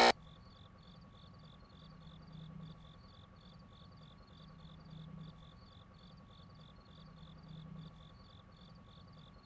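Faint cricket chirping, a high pulse repeating evenly about three times a second, over a low hum that swells roughly every two and a half seconds.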